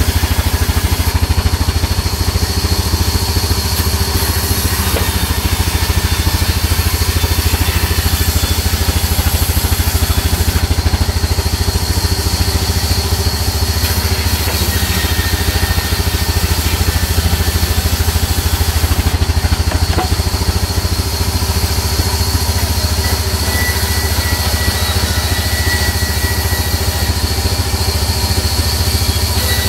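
Sawmill band saw running steadily with a low hum while margosa (neem) planks are ripped through it; a thin high whine comes in about halfway and again near the end.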